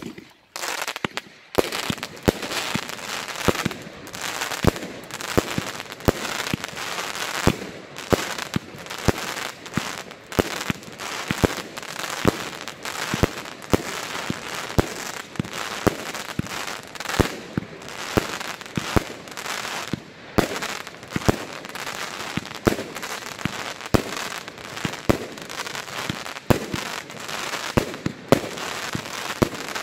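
Toschpyro Gigaverbund, a 144-shot firework compound cake, firing: one shot, then from about a second and a half in an unbroken string of launch thumps, roughly two a second, over the dense crackling of red crackling bombettes and glittering palms bursting overhead.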